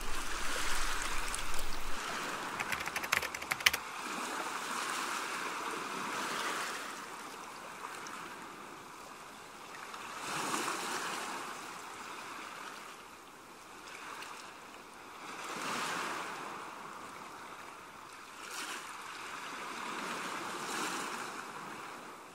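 Sea waves washing in: a soft rushing that swells and falls back about every five seconds. A few light clicks come in the first few seconds.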